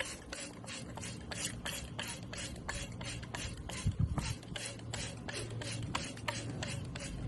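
Hand-pumped spray bottle squirting water in quick repeated pulls, a short hiss about three or four times a second, as birds are misted for a bath.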